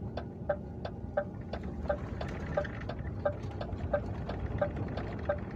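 Lorry cab's turn-signal indicator ticking steadily, about three ticks a second, over the low running of the truck's engine.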